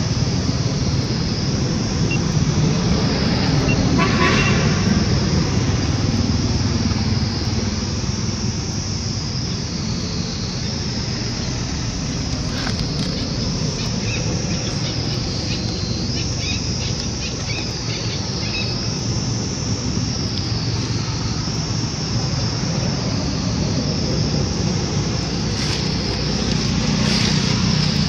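Steady low rumble of a motor vehicle engine running close by, with a steady high buzz on top and a few faint clicks.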